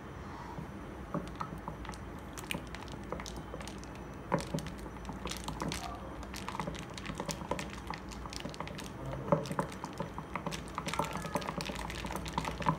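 A flat wooden stick stirring a thick, wet slime mixture in a ceramic bowl: irregular sticky clicks and squelches, with a couple of sharper knocks about 4 and 9 seconds in.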